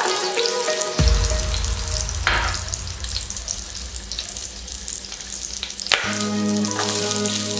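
Whole shallots frying in hot oil in a kadai, a steady sizzle with fine crackles. Background music comes back near the end.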